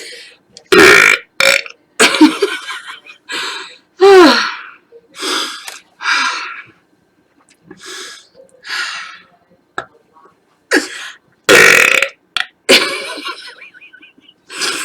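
A woman burping over and over: about fifteen separate burps, roughly one a second, some short and some drawn out with a falling pitch. The loudest come near the start and around two-thirds of the way through.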